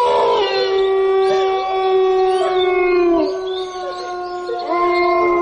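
Several canines howling together in long, overlapping held howls, a horror sound effect. The chorus eases off about three seconds in and swells again near the end.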